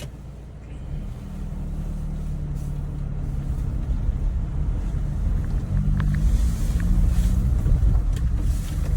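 Ford Transit van's engine running, getting louder from about a second in, with a single short click about six seconds in.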